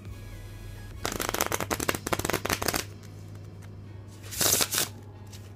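A deck of Honeycomb Saturn playing cards being riffle shuffled: a rapid run of card edges flicking together for about two seconds. Then, about four and a half seconds in, a short fluttering burst as the bridged cards cascade back into a pack.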